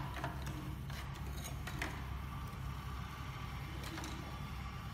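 Faint clicks and rustles of hands handling the wires and plastic connectors inside an opened video projector, mostly in the first two seconds, over a steady low hum.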